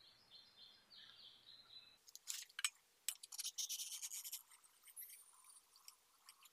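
Faint bird chirps, then, about two seconds in, a run of sharp clicks and scraping from a Stanley stainless steel coffee press as its plunger is pushed down to filter the coffee.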